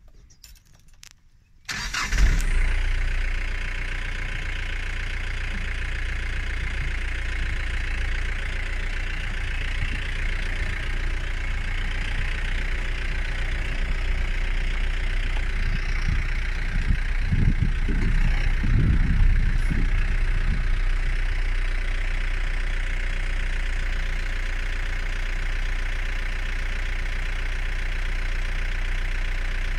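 Vehicle engine starting about two seconds in, then idling steadily with a low hum, with a few deeper rumbles past the middle.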